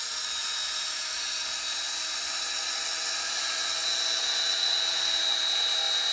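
Universal motor from a vacuum cleaner, a series-wound brushed motor, running unloaded on 120 V AC at very high speed: a steady high-pitched whine that grows a little louder about two-thirds of the way in. Its armature is rubbing on the field poles, which the owner says is making it smoking hot.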